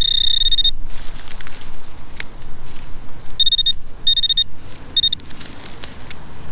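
Garrett Pro-Pointer AT pinpointer beeping as it is probed through the loose soil: a high beep for most of the first second, then several short beeps of varying length from about three and a half to five seconds in, signalling metal close to its tip. Between the beeps, soil and dry straw rustle and scrape under the gloved hand.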